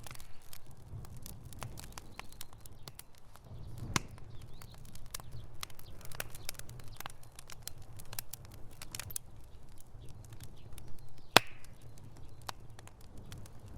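Wood fire burning in a fireplace: irregular sharp crackles and pops over a low steady rumble of flames, with one loud pop about eleven seconds in.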